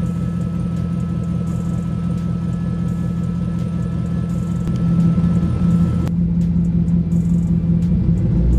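Supercharged LT4 V8 idling steadily at about 1,000 rpm, heard through its 3-inch stainless exhaust and Kooks mufflers.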